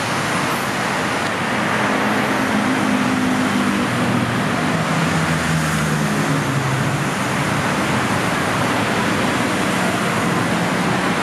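BTS Skytrain electric train pulling into an elevated platform and slowing to a stop, its low motor hum falling in pitch over a few seconds, over a steady rush of wheel and road traffic noise.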